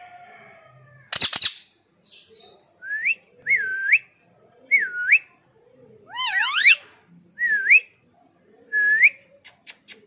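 Ringneck parrot calling and whistling: a harsh screech about a second in, then a string of short clear whistles that dip and swoop back up, one of them a rising multi-toned call, and a few sharp clicks near the end.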